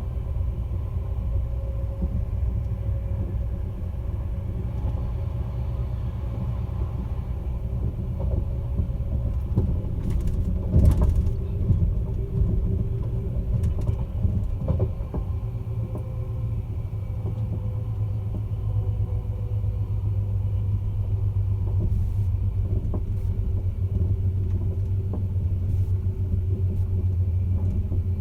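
Caledonian Sleeper train running with a steady low rumble, and a short burst of clunks about eleven seconds in.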